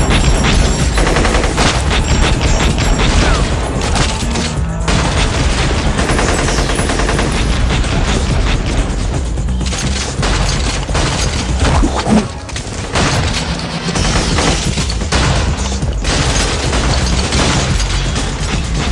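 Movie-soundtrack gunfire: dense, rapid volleys of automatic and single shots with heavy booming impacts, over driving music.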